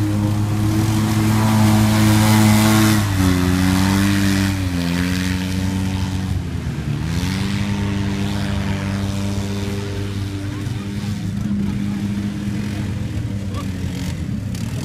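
Side-by-side UTV engine running hard and steady as it drives through mud. About three seconds in its pitch drops, wavers a couple of times as the revs change, then settles lower and a little quieter.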